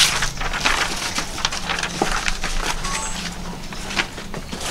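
Crinkling and rustling of brown wrapping paper and banana leaves being handled and laid out, with scattered small crackles and taps.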